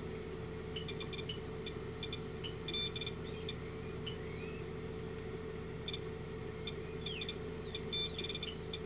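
SOEKS Ecotester handheld radiation meter giving faint, irregular short electronic beeps. Its display shows the red alarm state, the sign of a reading above its warning threshold. A steady low hum runs underneath.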